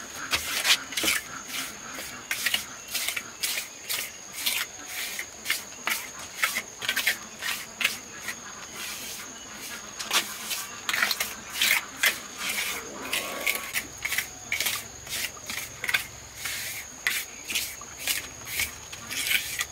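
Short scraping or striking strokes repeating about two a second, over a steady high insect buzz.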